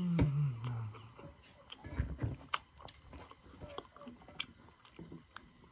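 A person chewing a mouthful of rice and nettle curry, with scattered wet mouth clicks and smacks. A brief low hum falls in pitch at the start.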